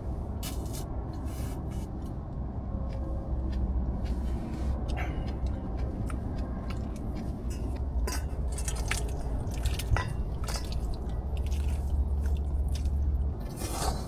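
A person eating hot dough-drop soup, chewing and slurping with scattered clicks of a spoon against the pot or bowl. A steady low rumble of wind on the microphone runs underneath.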